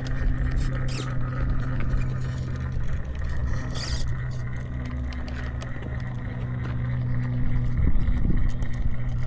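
Electric motors and geartrains of 1/10-scale RC rock crawlers humming as they drive, the hum dropping out and coming back as the throttle is let off and reapplied, with light clicks and scrapes of tyres and chassis on rock.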